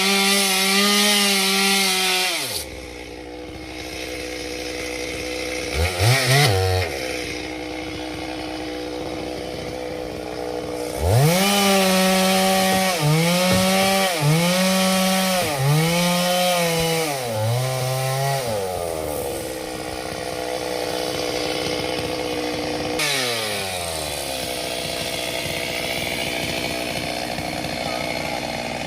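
Chainsaw engine revving hard, then dropping back to a low idle. It blips once briefly, then is held at high revs for about seven seconds, its pitch sagging several times as the chain bites into wood, before settling back to idle.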